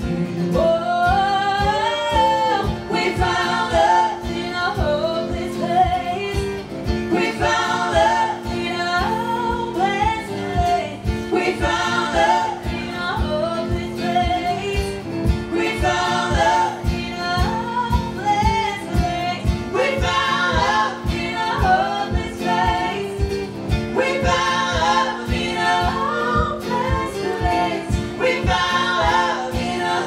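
Live pop cover sung by male and female voices in harmony, over a strummed acoustic guitar and a steady beat.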